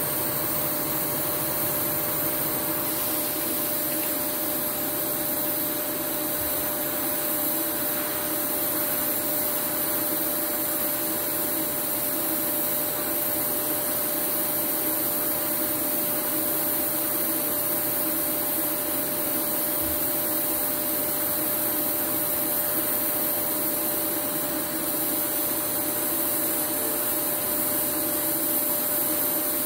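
TIG welding arc burning steadily on 6 mm steel as an automatic carriage carries the torch: a continuous even hiss with a steady hum under it, unchanging throughout.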